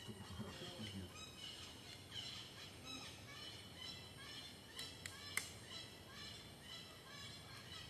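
Faint, high animal calls repeating every half second or so, with two sharp clicks a little past the middle.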